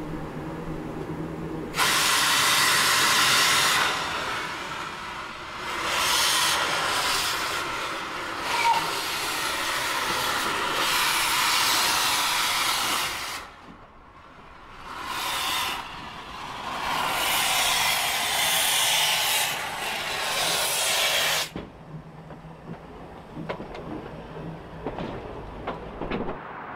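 Manning Wardle saddle-tank steam locomotive moving slowly with its cylinder drain cocks open, steam hissing loudly in long bursts of several seconds each. The hissing stops about three-quarters of the way through, leaving a quieter sound with a few light clicks near the end.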